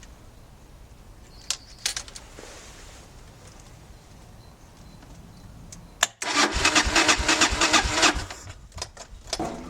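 A couple of clicks, then the electric starter cranking the 1996 Suzuki DR 650's single-cylinder engine in a fast, even churn for about two seconds, six seconds in. This is the first start attempt after both ignition coils were replaced.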